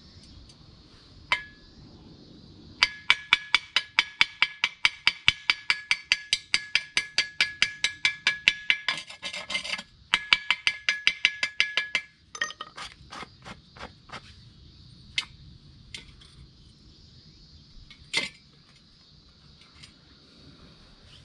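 A hammer striking a freshly stick-welded steel piece in quick, even, ringing metallic blows, about five a second for some nine seconds with one short break, then slowing to a few scattered single strikes: chipping the slag off the weld bead.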